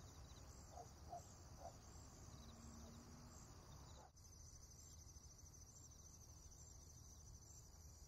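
Faint outdoor ambience of insects chirping in a steady, pulsing high trill, with a few short bird chirps in the first couple of seconds.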